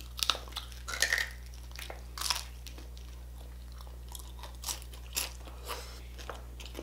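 Close-miked chewing and biting of crispy pata, deep-fried pork knuckle, with sharp crunches of its crackling skin. The crunches come thick in the first couple of seconds, then sparser.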